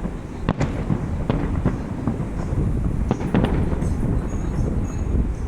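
Fireworks display with shells bursting: a series of sharp bangs, several in quick succession about three seconds in, over a steady low rumble.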